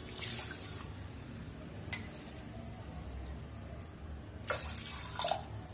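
Water poured from a glass bowl into an aluminium pressure cooker holding dry broken wheat, splashing at the start and again, in two short bursts, about four and a half seconds in. A single light clink comes about two seconds in.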